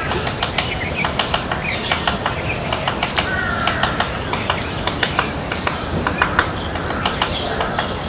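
Fulvous-breasted woodpecker pecking at wood, irregular sharp bill taps several times a second, with other birds calling in the background.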